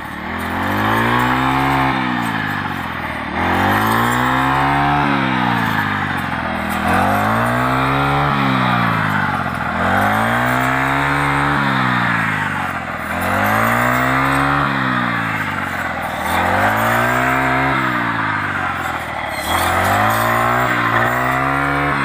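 Petrol brush cutter with a reaper attachment cutting standing wheat. Its engine revs up and sags again about every three seconds as each swing of the blade goes through the stalks, seven swings in all.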